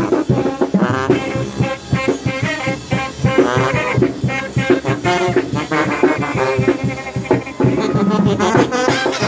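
A live Mexican brass banda playing, its sousaphones carrying the bass under trumpets and other brass, with a steady drumbeat.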